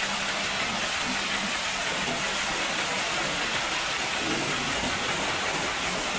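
High-pressure washer jet spraying across the wooden side panels of a truck body: a steady hiss of water striking and spattering off the planks.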